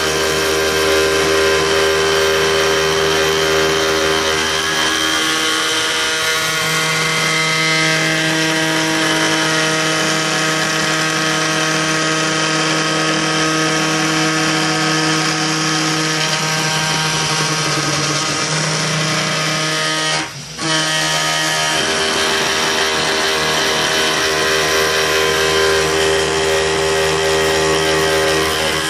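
Homebuilt CNC router milling aluminum: a steady power-tool spindle whine with several held tones that shift pitch a few times, as the cut moves and feed changes, and a short break about twenty seconds in.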